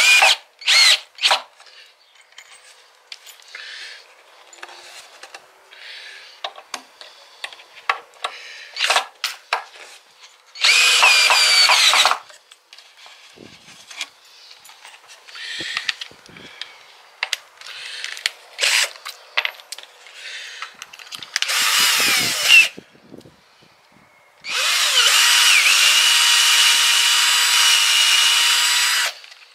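Power drill running in short bursts of a second or so, then one longer steady run of about four to five seconds near the end. Quieter knocks and scrapes of wood and tools being handled come in between.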